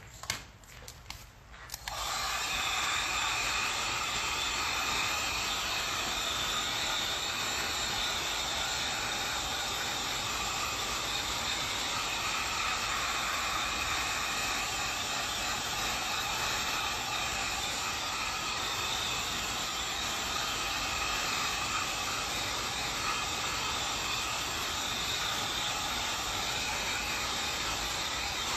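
Handheld heat gun switched on about two seconds in after a few clicks, then blowing steadily with a fan whine as it is passed over wet spray paint to dry it.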